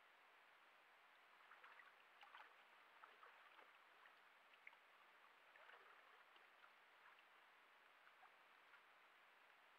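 Faint sloshing and splashing of water as a black bear moves about in a shallow woodland pool, irregular small splashes starting about a second and a half in, over a steady hiss.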